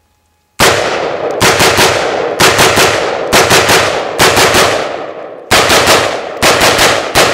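M4 5.56 mm rifle firing about twenty rounds in quick strings, mostly three shots at a time, starting about half a second in. A long fading echo follows the last shots.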